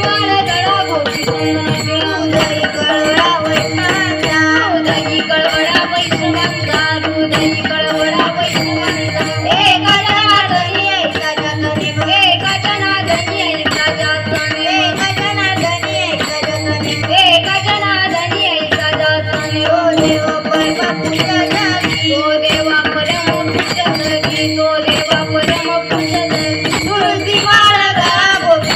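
A woman singing a Marathi Warkari devotional song, backed by a steady hand-drum beat and jingling percussion over sustained held tones.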